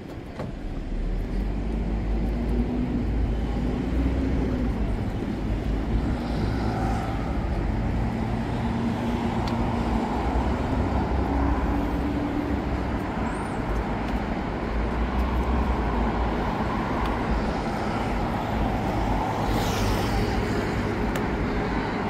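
Road traffic: a steady rumble of passing motor vehicles that swells about a second in and then holds.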